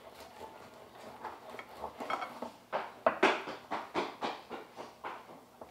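A knife cutting through a roasted duck on a wooden cutting board: a quick run of crunching cuts and knocks against the board, loudest in the middle.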